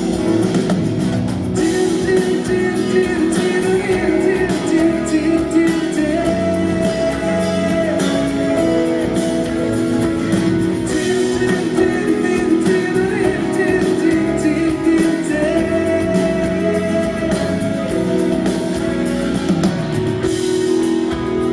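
Live band music with guitar, an instrumental passage of a pop song, with singing heard over it but no clear words.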